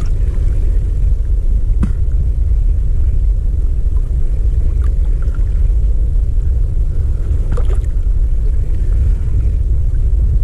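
Wind buffeting a camera microphone just above choppy sea water: a loud, steady low rumble, with a couple of faint clicks.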